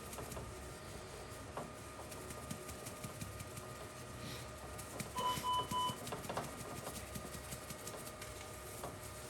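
Three short electronic beeps at one steady pitch about halfway through, over a faint room background with light rustling and small clicks.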